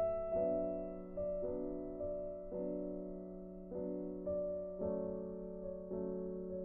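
Background music: soft piano chords struck every second or so, each left to ring and fade.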